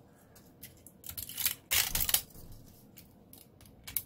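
Thin brim being peeled and snapped by hand off a 3D-printed plastic reindeer figure: a run of small crackles and clicks, loudest around the middle.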